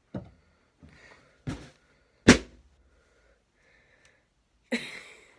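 A large balloon bursting with a single sharp bang about two seconds in, after a couple of smaller knocks and handling sounds. A short noisy rustle follows near the end.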